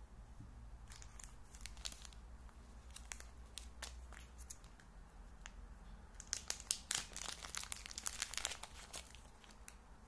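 Small clear plastic packaging bag crinkling as it is handled and opened to take out a lanyard: scattered crackles at first, then a dense, louder run of crinkling about six seconds in.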